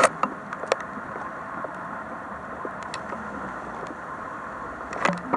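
Footsteps over rubble in a derelict building: a few sharp knocks and crunches, the loudest right at the start and about five seconds in, over a steady hum of distant road traffic.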